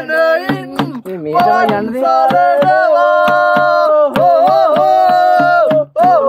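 Music: a voice singing long, held notes over a steady percussion beat.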